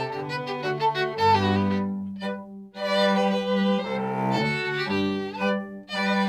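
A baroque string orchestra playing live: violins over cello and bass, with quick short notes at first, a brief break about two and a half seconds in, then longer held chords.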